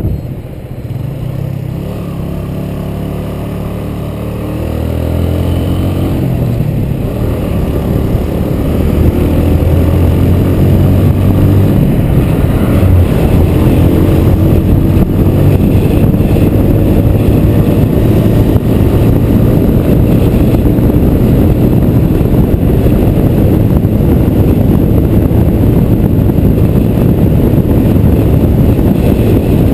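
Motorcycle engine pulling away and accelerating, its pitch rising over the first several seconds, then running steadily at cruising speed. A rush of wind on the bike-mounted microphone grows louder as speed builds and then stays loud.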